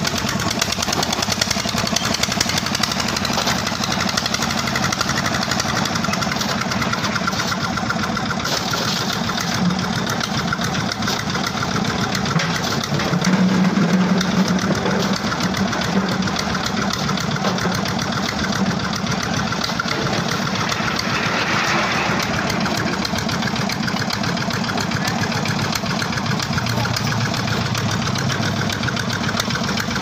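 Diesel Petter-type engine driving a construction material hoist, running steadily with a rapid knocking beat. It grows a little louder about 13 seconds in.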